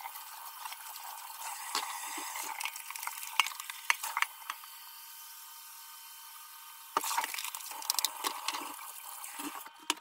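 Kitchen tap running into a stainless steel sink as a steady thin hiss, with scattered light clinks and rubbing from items being rinsed and scrubbed by hand; it gets louder suddenly about seven seconds in.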